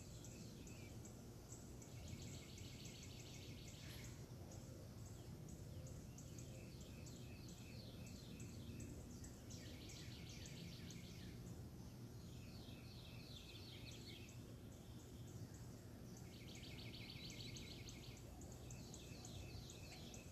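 A bird singing a rapid trilled phrase about two seconds long, repeated every few seconds, over a faint steady low background rumble.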